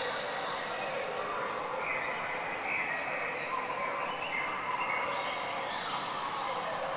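Steady outdoor insect chorus: a continuous high hiss with a few faint held tones drifting through it.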